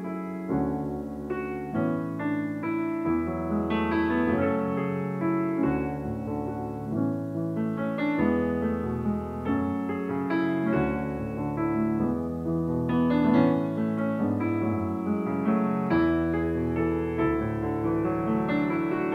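Piano playing a gentle melody over chords: the instrumental intro of a pop song's backing track, with no vocals yet.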